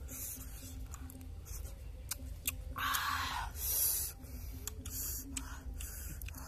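Cooked crab shells cracking and crunching as they are picked apart by hand and eaten, with many sharp clicks and two louder, longer eating noises about three and four seconds in.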